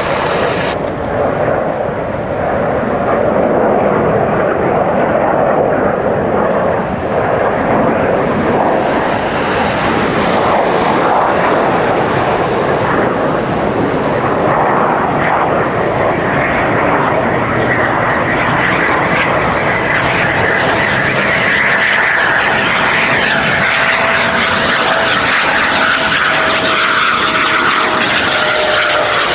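Eurofighter Typhoon's twin Eurojet EJ200 turbofans on landing approach with the gear down, a loud steady jet noise. About halfway through, a high engine whine joins in, and its pitch slowly falls near the end.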